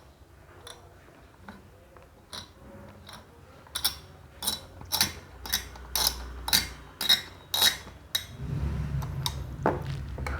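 Stock AMD CPU cooler being screwed down onto the motherboard with a screwdriver: a run of sharp clicks about twice a second. A low steady hum starts near the end.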